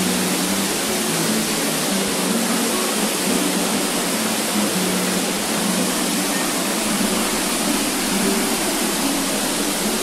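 Waterfall and cascading stream water rushing steadily through a rocky gorge.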